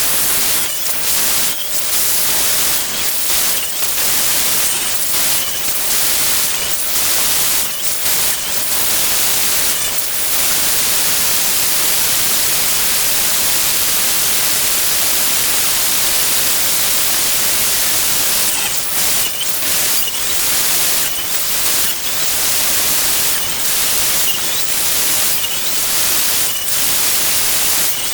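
Woodworking power-tool noise played back at 12x speed: a loud, bright, steady hiss, broken by short dips in the first ten seconds and again in the last ten.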